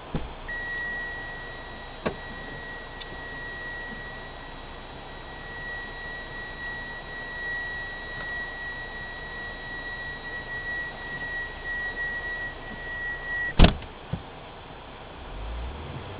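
Car cabin sounds: a click, then a steady high electronic warning tone that runs unbroken for about thirteen seconds. The tone cuts off at a sharp loud knock, like a car door being shut, followed by a smaller click.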